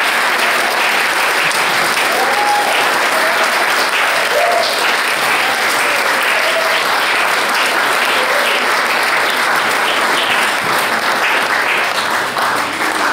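Crowd applauding, many people clapping steadily and without a break.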